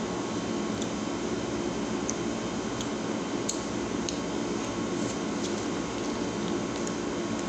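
Steady low room hum with faint, scattered small clicks and taps on top, from a metal fork picking at a chocolate waffle in a cardboard box.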